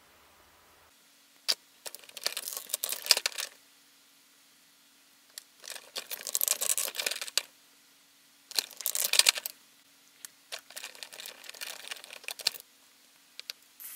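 Hands handling Play-Doh and the plastic molds and toy pieces of a Play-Doh playset: four spells of rustling and clicking with quiet pauses between, over a faint steady hum.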